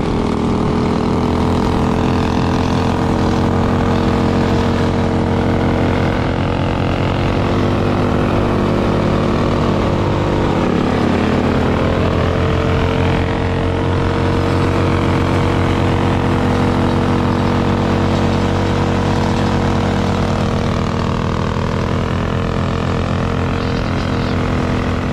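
Minibike engine running steadily at riding speed, its pitch dropping briefly about ten seconds in as the throttle eases, then coming back up.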